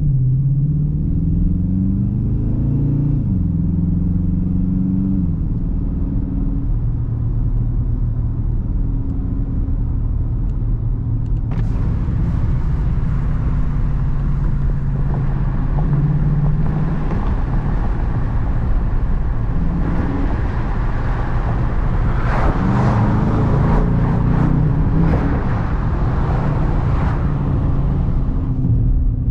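Dodge Charger R/T's 5.7-litre Hemi V8 pulling through the gears: its pitch rises and drops back at an upshift about three seconds in, then holds steady while cruising. From about twelve seconds in a rushing noise joins it, and the engine rises in pitch again a little past twenty seconds.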